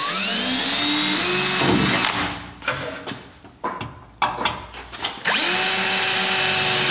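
DeWalt cordless drill drilling holes in a van's rear door for screws, in two runs: the first stops about two seconds in, and the second starts about five seconds in. A few light clicks fall between the runs.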